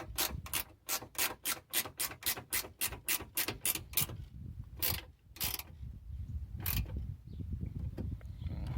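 Icon ratcheting wrench clicking as it is swung back and forth on a fastener, its ratchet pawl ticking about four or five times a second. The clicks thin out after about four seconds and come only now and then toward the end.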